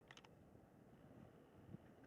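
Near silence: a faint low rumble of background noise, with three quick, faint high chirps right at the start. No bells ring yet.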